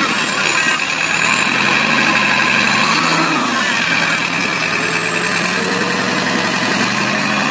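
John Deere 5090E tractor's diesel engine running steadily as the tractor pushes soil with its front blade.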